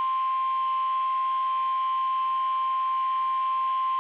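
NOAA Weather Radio warning alarm tone, a single steady high-pitched tone held unbroken. It is the alert signal that announces a weather warning broadcast is about to follow.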